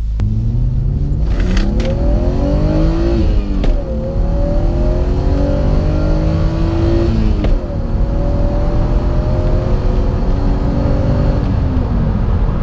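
BMW E36's straight-six engine accelerating hard under load, heard from inside the cabin. The revs climb, fall at a gear change about three and a half seconds in, climb again, fall at a second upshift about seven and a half seconds in, then hold fairly steady. The engine is being loaded through the rev range so the ECU can learn its knock adaptations after the ignition advance was raised a degree.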